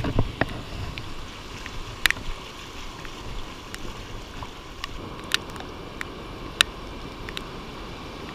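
Ocean surf and wind as a steady rushing noise, muffled through a GoPro's waterproof housing. There is a heavy thump right at the start as the surf rod is swung, and a few sharp ticks through the rest.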